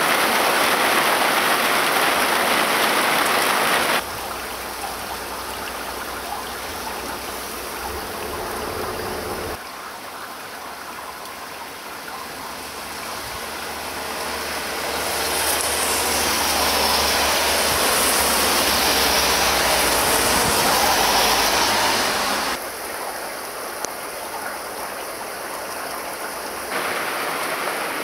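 Heavy rain pouring down, a steady hiss in several clips cut together, some louder and some softer. A low rumble sits under the quieter middle clips.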